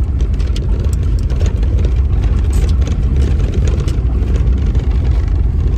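Car engine and tyre noise heard from inside the cabin of a moving car, a steady low rumble with light rattles.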